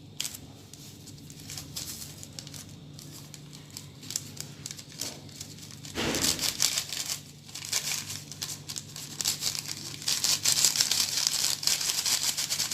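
Small packets of leavening (khmira) being torn open, crinkled and emptied into a bowl: scattered crackling at first, a louder rustle about halfway, and dense crinkling near the end.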